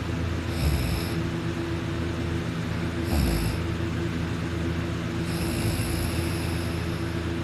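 A sleeping person snoring hard: three snores about two and a half seconds apart, the third one longer, over a steady hum.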